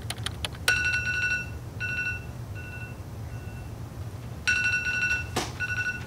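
Mobile phone ringing with an electronic ringtone: one long beep, then shorter beeps that fade away, with the pattern starting again near the end. A few sharp clicks come just before the first ring.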